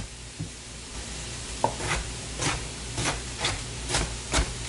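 Chef's knife dicing a tomato on a plastic cutting board: after a quieter first second and a half, sharp knife taps on the board come about three a second. Under it runs a steady sizzle of corn browning in a pan.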